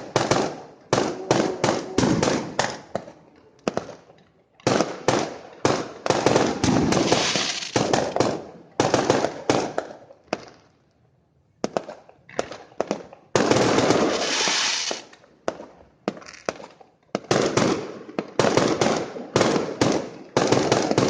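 Fireworks bursting in rapid volleys of sharp bangs, with two short lulls and an unbroken dense salvo about two-thirds of the way in.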